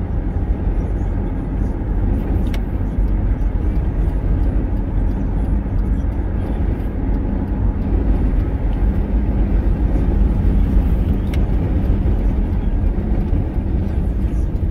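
Inside a moving car: steady low engine and tyre rumble of driving on a paved road, with a faint tick twice.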